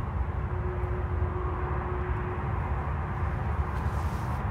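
Steady low outdoor rumble with a faint thin hum about half a second to two seconds in.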